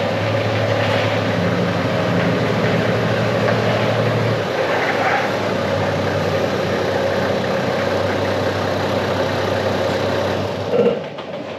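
Toyota Land Cruiser 80 Series diesel engine running at low revs as the four-wheel drive creeps forward slowly, a steady even note; its level falls away near the end.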